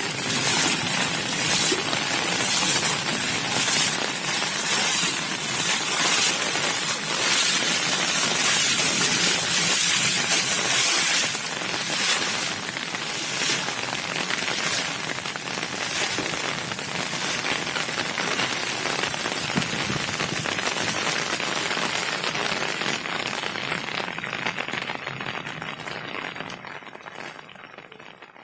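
Heavy monsoon rain pouring onto flooded ground and standing water, a steady hiss. Over roughly the first ten seconds, rhythmic splashes of floodwater being thrown out with buckets and pans. The sound fades out near the end.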